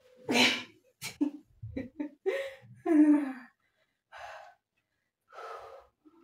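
A woman gasping and letting out short groans as she collapses out of a backbend onto the floor, with a muffled bump as she lands, then a few slow, heavy breaths from the exertion.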